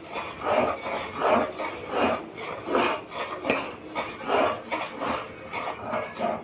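Steel spoon stirring melted butter in a stainless steel pot, scraping the sides and bottom in repeated strokes about once every three-quarters of a second, with a sharper metal clink about halfway through. The butter is being cooked down into ghee on high flame.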